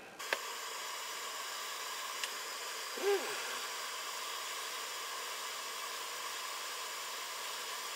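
Hot-air handpiece of a WEP 853 rework station blowing a steady hiss of air, coming on right at the start, as it heats the solder of a surface-mount chip on a circuit board.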